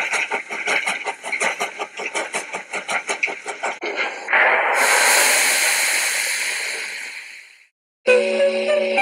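Train sound effect with a fast, regular chugging beat, cut off about four seconds in by a loud crash that fades away over about three seconds. Music begins near the end.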